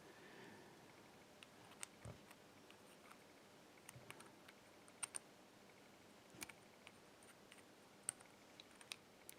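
Faint, scattered small metallic clicks and ticks of lock parts being handled, as a grooved plug follower and pinning shoe are worked to push the plug out of the lock. There are a dozen or so irregular clicks, the sharpest about five and eight seconds in.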